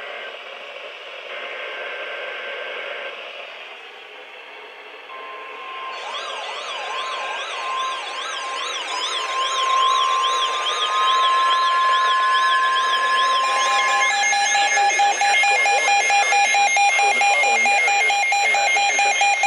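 NOAA weather radio receivers going off for an EAS warning. The broadcast's data-burst header plays first, then the steady weather-radio warning alarm tone from about five seconds in. A warbling siren-like alarm joins it, and from about thirteen seconds a rapid pulsed beeping from the receivers gets louder.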